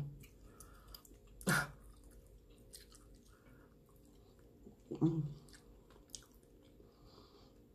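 Close-up chewing and wet mouth sounds of a person eating, with three louder short mouth noises: one at the start, one about a second and a half in, and one about five seconds in.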